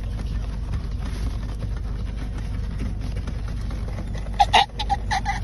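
Steady low rumble inside a car. Near the end a man starts a run of short, rhythmic, strained cries during a grand mal (tonic-clonic) seizure, several a second.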